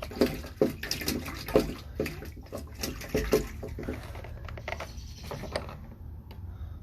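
Water running and splashing into an enclosed space as it fills, with irregular knocks and splashes for about five and a half seconds, then dying down to a few faint clicks.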